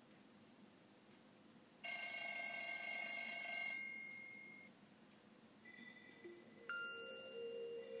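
Nokia X3-02 mobile phone's loudspeaker playing its built-in clock alarm tones. About two seconds in, a loud, bright electronic alarm ring of several steady pitches starts suddenly, lasts about two seconds and fades out. Near the end a softer chiming alert tone begins.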